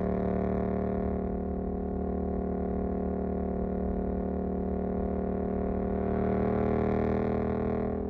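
Suzuki GSX-8S parallel-twin engine running at a steady speed through a Jeskap EVO aftermarket exhaust while cruising in one gear. The pitch holds nearly constant, and the exhaust note swells slightly about six seconds in.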